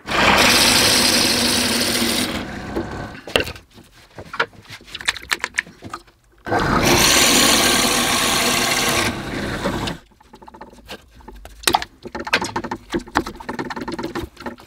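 A drill press with a Forstner bit boring into a softwood block in two runs of about two and three seconds. Between and after the runs come light clicks and scraping as the block is handled and the chips are brushed off.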